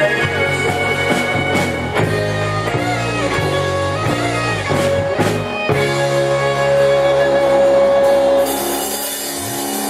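Rock band playing live at a sound check, with drums and a long held chord from about six seconds in.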